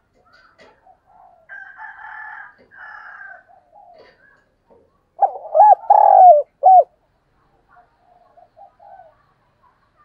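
Caged decoy spotted dove cooing close by: one loud phrase of about four notes about five seconds in, the long third note the strongest. Fainter short coos are scattered around it.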